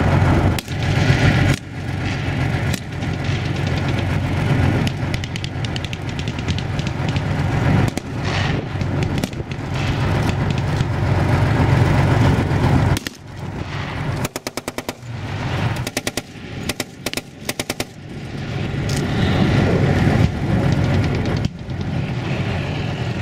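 Tracked BMP-1 infantry fighting vehicle's diesel engine running with a steady low rumble. Past the middle come several short bursts of automatic gunfire, about ten rounds a second, before the rumble returns.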